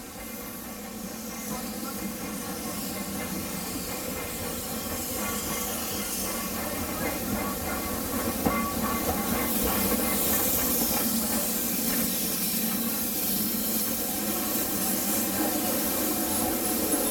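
Steam locomotive hissing steam in a steady rush, growing louder over the first ten seconds or so and then holding.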